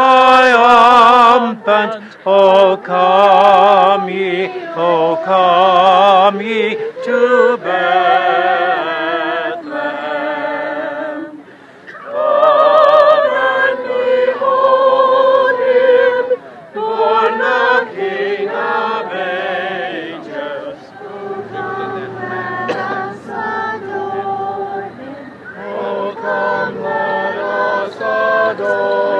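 A crowd of people singing a Christmas carol together, with several voices close by and a wavering vibrato.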